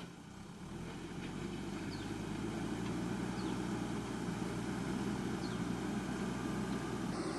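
JCB 3DX backhoe loader's diesel engine running steadily, growing louder over the first two seconds and then holding level.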